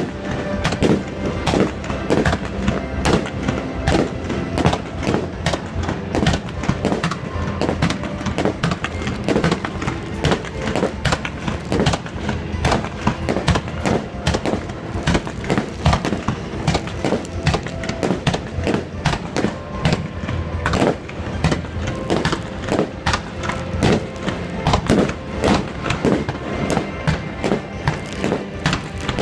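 Fireworks display going off in a dense, rapid string of bangs, several a second, with music playing over them.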